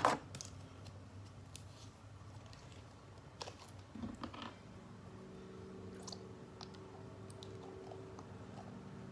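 Faint clicks and taps of small plastic school-glue bottles being handled: a cap opened and a bottle squeezed out. There is a louder knock right at the start, and a faint steady hum from about halfway.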